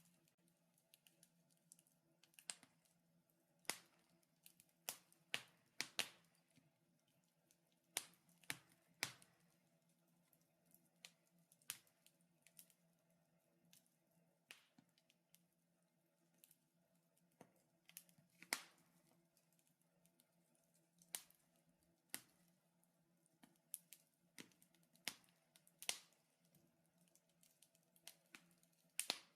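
Wood fire crackling: irregular sharp pops and snaps, roughly one a second with a few louder ones scattered through, over a faint steady hum.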